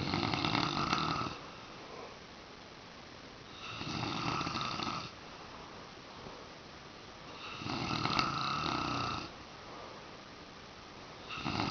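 A man snoring in his sleep: four loud snores, each over a second long, coming about every four seconds, the last one starting near the end.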